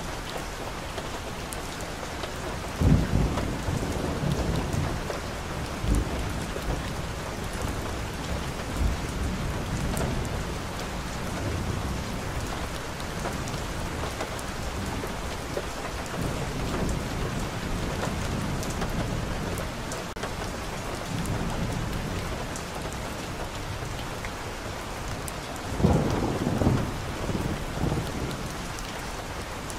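Steady rain falling on a wet street and on foliage, an even hiss. A few short low rumbles rise over it, the biggest a few seconds in and near the end.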